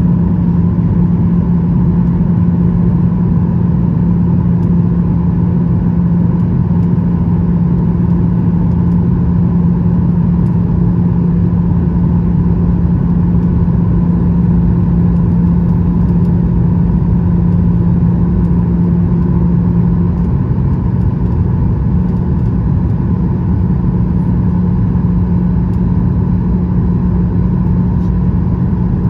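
Cabin noise of a Boeing 737-800 heard from a window seat over the wing on approach: the steady drone of its CFM56-7B turbofan engines and the airflow, with a constant low hum. The hum shifts slightly about twenty seconds in.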